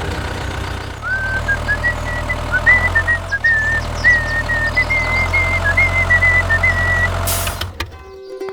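Engine running steadily, with a high wavering whistle-like tone over it from about a second in; both cut off sharply near the end.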